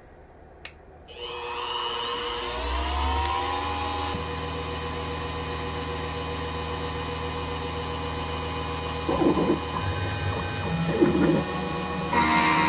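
A click of the switch, then the spindle motor of a CNC-converted Harbor Freight X2 mini mill spins up, its whine rising in pitch for a couple of seconds before running steady at speed. Later some rough, irregular sounds join in, and the machine grows louder just before the end.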